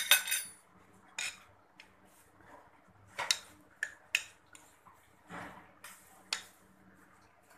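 Metal spoon clinking and scraping against a steel bowl: a string of irregular clinks, the first the loudest with a short metallic ring.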